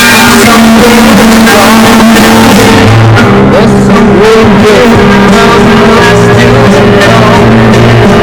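Music with singing playing very loud from a newly installed Jensen heavy-duty radio head unit through the tractor cab's speakers, tuned to a broadcast station.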